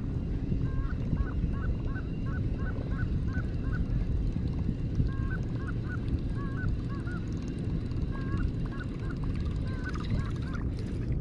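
Geese honking in several runs of short calls, over a steady low rumble.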